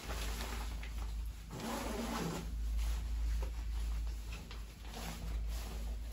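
Shower water spattering onto the hood and sleeves of an Arc'teryx Beta SL Hybrid rain jacket, with the shell fabric rustling as the wearer moves under the spray during a waterproofing test.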